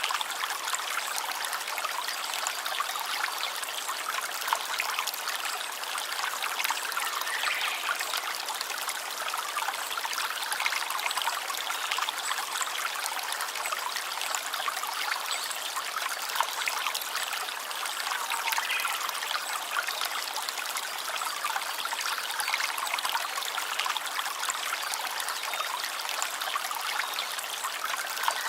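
A stream of water running steadily, a constant trickling and babbling with many small splashes.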